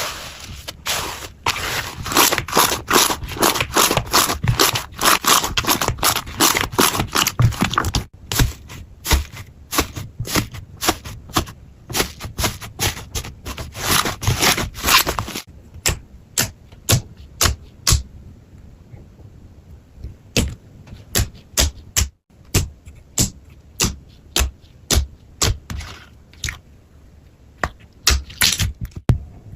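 Slime being pressed and poked by hand, making dense crackling, popping clicks for about the first half, then sparser single pops.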